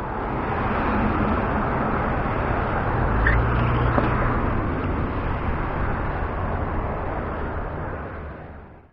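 Road traffic going by on the bridge: a steady rushing that swells, holds with a low hum near the middle, and fades away.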